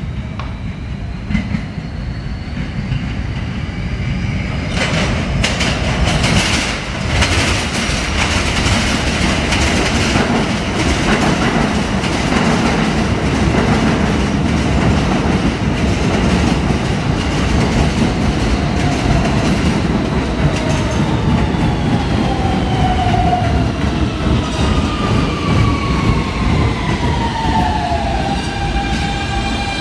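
New York City Subway R160 trains running: a steady rumble and clatter of wheels over rail joints, louder from about five seconds in. A motor whine rises in pitch over the first few seconds. From about twenty seconds in, whine tones fall in pitch as a train slows, and high wheel squeals come in near the end.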